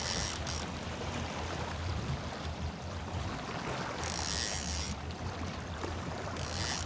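Boat engine running with a steady low hum under water wash and splashing. Three short bursts of hiss come at the start, about four seconds in, and near the end.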